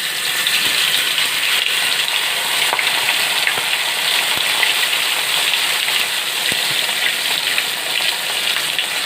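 Marinated chicken pieces frying in hot oil in a pan: a steady sizzle with scattered small crackles.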